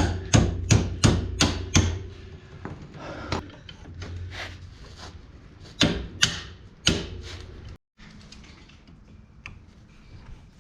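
Hammer blows on the side-by-side's rear shock, driving its lower end into the mount: six quick strikes in the first two seconds, then a few spaced-out ones. After a brief break near eight seconds, only faint clicks.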